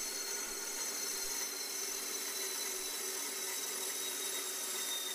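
DB-100 diamond band saw running, its diamond blade grinding steadily through the shoulder of a glass bottle under light feed pressure.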